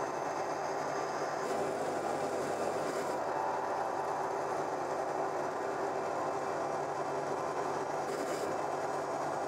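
Drill press running steadily as its bit cuts into a metal block, throwing off curly chips.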